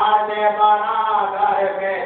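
Voice chanting a slow, drawn-out melodic recitation, the notes held and gliding, over a steady low hum.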